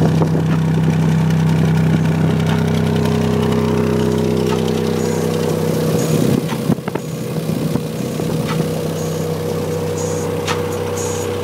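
Subwoofer driven by a Soundstream 1000S amplifier, playing loud, steady deep bass with a few fixed low tones held throughout. The sound dips slightly and shifts about six and a half seconds in.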